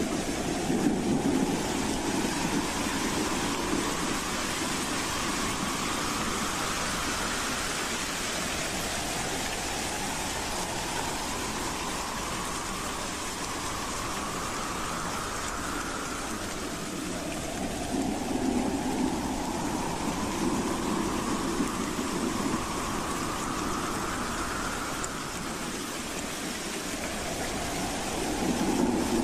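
Howling wind: a steady rushing noise with a whistling howl that rises slowly in pitch over several seconds and then falls back, about every eight seconds.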